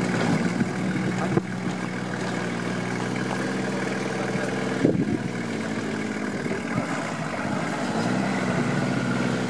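Nissan Patrol 4x4 engine idling steadily, with two short knocks, the louder one about five seconds in.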